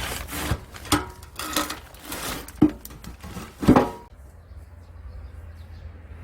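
Metal tools and parts clanking and knocking, about five or six sharp strikes with a short metallic ring over some four seconds, as work goes on at a truck's rear spring and centre bushing; after that only a low steady hum.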